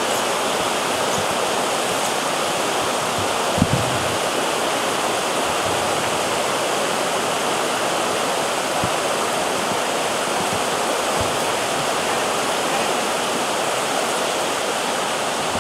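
Steady rushing of a shallow river over rocks: white-water rapids running without a break.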